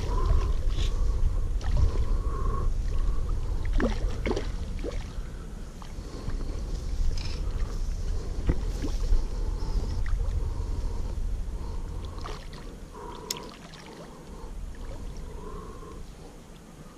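Wind buffeting the microphone as an uneven low rumble that eases off over the last few seconds, with scattered light clicks and rustles.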